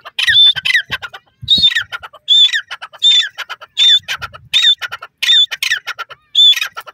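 Grey francolin calling loudly and repeatedly, about one shrill call every three-quarters of a second; each call is a high whistled note that slides down and ends in a quick rattling clatter.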